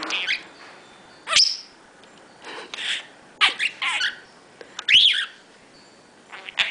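Pet budgerigar chirping and chattering: a string of short, sharp chirps and whistles with pauses between them, some gliding up and then down in pitch.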